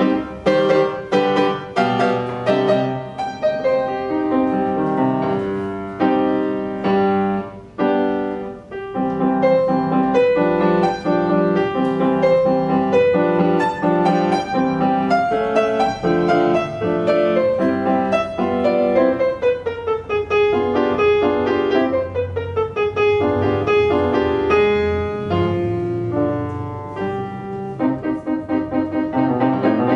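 Solo grand piano playing a classical piece in dense, fast passages of chords and runs, with a melody line that falls in pitch around twenty seconds in.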